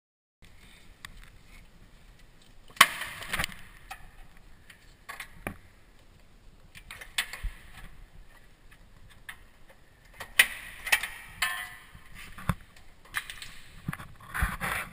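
Irregular clicks, knocks and scraping as the old EVAP vent solenoid valve assembly and its hoses are handled and pulled free under the truck. The sharpest knock comes about three seconds in, and a busier run of scraping comes about ten seconds in.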